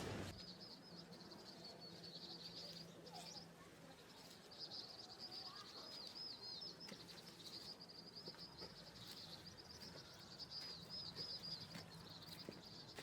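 Faint, high-pitched twittering of small birds: quick chirps in long runs with short breaks.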